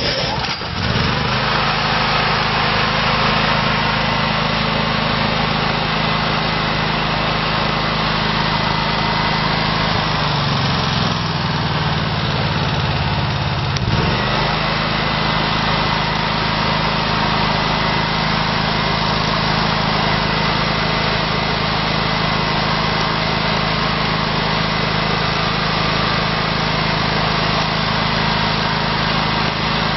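Wacker Neuson GP6600A portable generator's single-cylinder Honda gas engine catching on a recoil pull-start about half a second in, then running steadily. Around the middle its note dips and wavers for about four seconds, then settles back to the same steady running.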